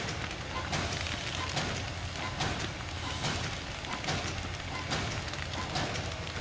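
Center seal pouch making machine running: a steady mechanical hum and hiss with a stroke that repeats a little faster than once a second as the machine cycles.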